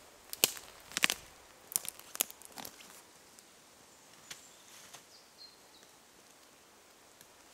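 Footsteps crunching over twigs and leaf litter on a forest floor: five or six sharp cracks in the first three seconds, then only a few faint rustles.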